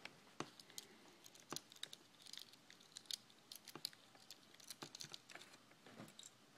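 Faint, irregular clicks and scrapes of a knife tip working tiny screws out of a laptop's screen mounting, with metal ticking against metal and plastic.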